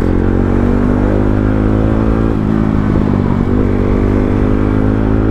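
Motorcycle engine running steadily under way, with a low rumble underneath; its pitch dips and wavers briefly about halfway through, then steadies.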